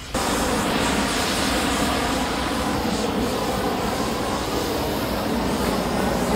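Gas hand torches used in glassworking, their flames making a loud, steady rushing hiss as they heat the hot glass. The sound starts suddenly just after the beginning.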